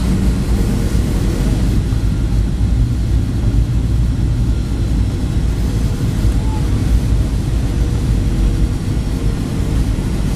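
Inside the cabin of a Boeing 737-700 on approach to land: its CFM56-7B turbofan engines and the airflow make a loud, steady low rumble with a faint even hum.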